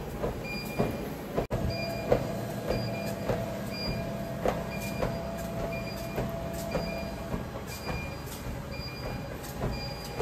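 Treadmill running: a steady motor hum and whine under the belt, with regular footfalls thudding on the deck about every half second.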